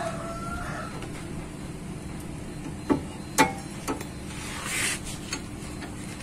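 Three sharp metal clicks about half a second apart, near the middle, from handling an unbolted disc brake caliper against the brake disc and its fittings, over a steady low background hum.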